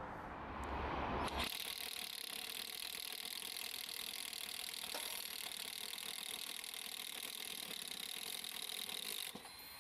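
A cordless power tool running steadily for about eight seconds, then stopping sharply near the end.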